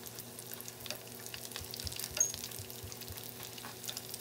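Potato-filled rolled tortillas (taquitos) shallow-frying in hot oil in a skillet: a steady sizzle with fine scattered crackles and one sharper click about two seconds in.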